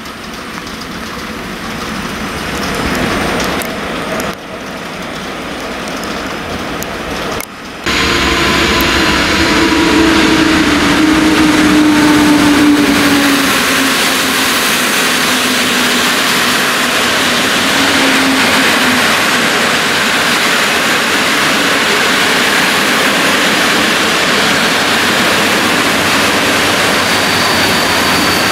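Intercity passenger train behind an EP09 electric locomotive running through a station. The coaches rumble and hiss steadily as they roll past, with a whine that falls slowly in pitch for about ten seconds. Before it, a quieter stretch of railway sound cuts off suddenly about eight seconds in.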